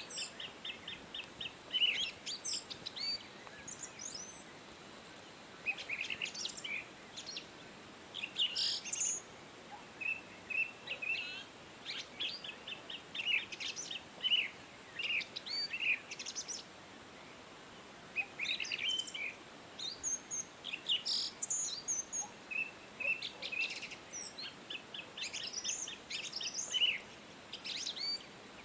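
Small songbirds chirping and trilling: bursts of quick, high chirps and short rapid trills, with pauses of a second or two between them.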